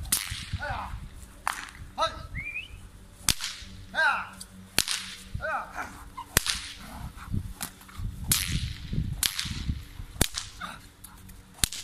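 Training whip cracked over and over, a sharp crack every second or two, with swishes of the lash between, as a shot-like bang to test how eight-week-old puppies react to gunfire. High-pitched puppy yaps come between the cracks.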